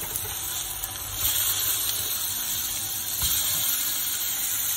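Raw beef burger patties sizzling in a hot frying pan. The sizzle gets louder about a second in and again near three seconds as the patties are turned over with a spatula onto their uncooked side.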